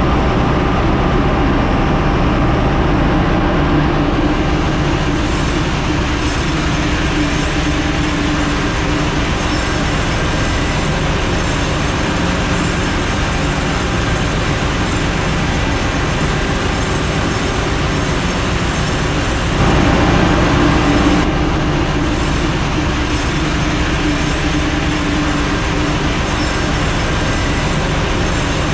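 Steady, loud machinery drone of a ship's engine room, with a few faint steady tones in it. It gets briefly louder for a second or two about two-thirds of the way through.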